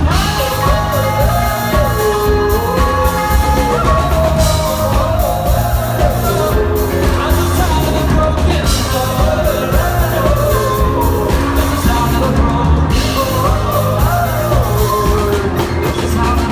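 Live pop-rock band playing with drums, under a wordless sung melody that slides up and down.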